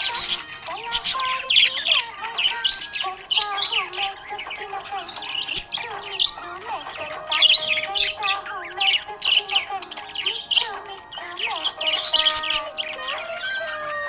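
Budgerigars chirping and warbling continuously, with fast, sharp high chirps over a wavering, gliding chatter.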